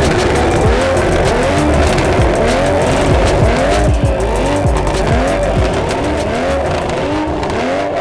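Two BMW M340i B58 turbocharged straight-six engines with valvetronic performance exhausts being revved in repeated blips, the exhaust note rising and falling about every three-quarters of a second, with sharp pops and crackles between revs.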